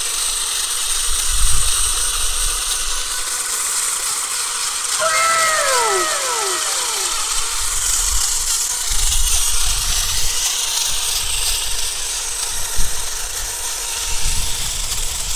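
Small electric motors of toy RC cars running flat out in a tug of war, a steady high whine with hiss as the wheels spin on dirt. About five seconds in there is a brief falling pitched sound.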